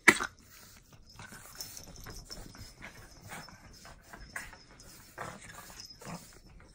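Two fawn pugs playing and wrestling on a bed: scattered short huffs and scuffles of paws and bodies on the bedding, with one loud, sharp sound right at the start.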